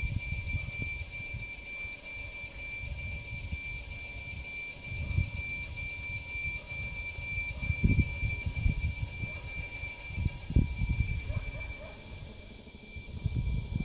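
An electric bell ringing steadily and without pause, cutting off suddenly at the very end. Under it is an irregular low rumble.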